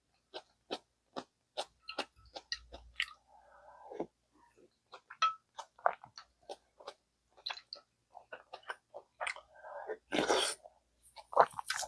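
Close-miked chewing of gamjatang (pork back-bone stew): a steady run of short, wet mouth clicks, about two or three a second. One longer, louder rushing mouth sound comes about ten seconds in.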